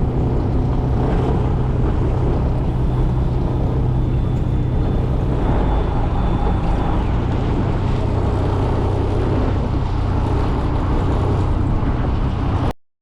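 Boat engine running steadily, a constant low drone with spray-like noise over it, cutting off abruptly near the end.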